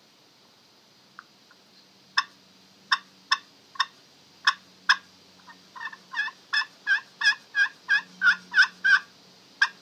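Two Faced Loudmouth slate-over-aluminum pot turkey call played with a striker. It gives a few single sharp notes about half a second apart, then from about six seconds in a fast run of yelps, about three a second, getting louder.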